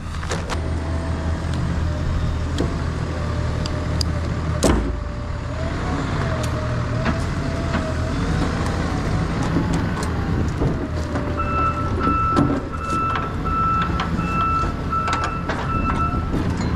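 Forklift engine running with a wavering whine while lumber bundles are set on a flatbed trailer, with scattered knocks and one loud knock about five seconds in. From about eleven seconds its reverse alarm beeps steadily as it backs away.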